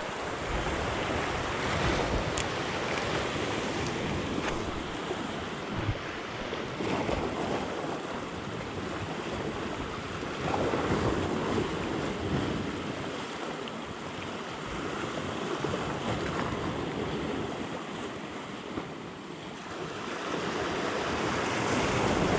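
Small sea waves washing and breaking over shoreline rocks, the wash swelling louder about ten seconds in and again near the end, with wind noise on the microphone.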